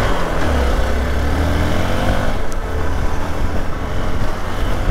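Hero XPulse 200's single-cylinder engine running as the motorcycle rides a rough, wet trail, revving up in the first couple of seconds and then holding. A steady rushing noise runs under the engine throughout.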